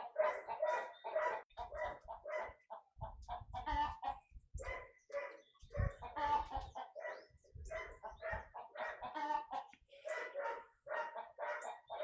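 Chickens clucking, many short calls one after another with hardly a pause.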